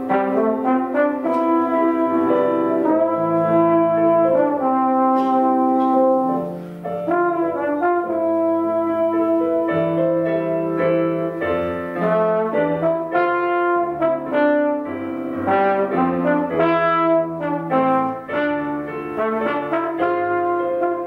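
Instrumental music of held notes forming chords that change every second or so, with no singing.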